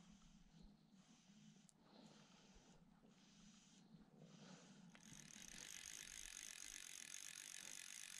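Near silence, then from about five seconds in a fly reel's click-and-pawl ratchet clicking steadily and fast as line is wound in.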